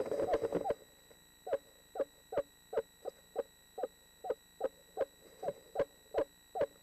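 Eastern screech owl calling inside the nest box: after a louder, busier burst in the first moment, a steady series of short, downward-bending hoots, about three a second.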